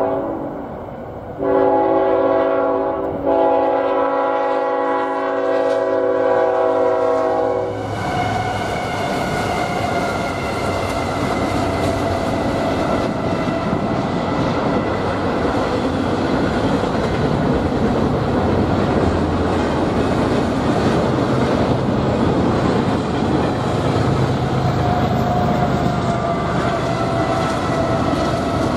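Diesel locomotive air horn blowing for a grade crossing: several blasts, the last held about four seconds. It is followed by the steady rumble and rattle of a double-stack intermodal freight train's wheels rolling past on the rails.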